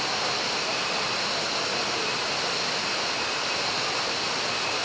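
Waterfall pouring, a steady unbroken rush of falling water.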